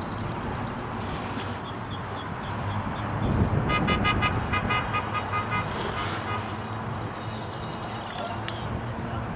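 Chairlift ride: a steady rush of air and running rope, swelling about three seconds in into a louder rumble with a quick, even, tonal rattle for a few seconds as the chair passes a lift tower and the haul rope runs over its sheave wheels.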